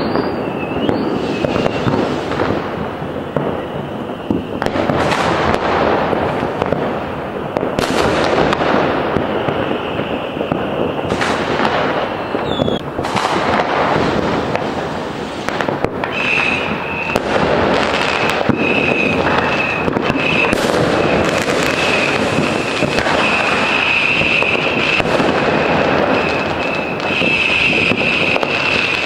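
Fireworks and firecrackers going off all around a city: a continuous crackle and rumble of many bangs, with several sharper, louder reports and a few short whistles. A steady high tone sets in about halfway through and runs on under the bangs.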